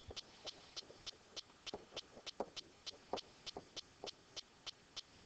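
Faint, even ticking, about three or four clicks a second, with light irregular taps and strokes of a stylus writing on a tablet screen.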